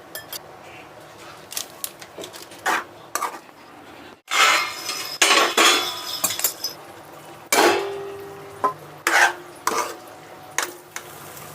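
Metal kitchen utensils clinking, knocking and scraping against a pot or bowl in a series of sharp knocks, with a louder scraping stretch a little after the middle. One clink about two-thirds of the way in rings on briefly.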